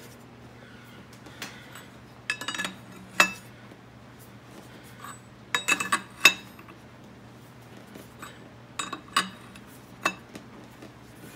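Steel wrench clinking and clicking against the nut of a harmonic balancer installer tool as it is turned stroke by stroke to press a balancer onto a small-block Chevy's crankshaft. The metal clinks come in small scattered clusters over a faint steady hum.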